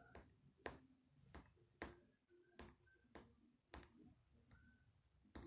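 Key clicks of an iPhone's on-screen keyboard, one sharp tick per key tapped. About eight ticks come at an uneven typing pace.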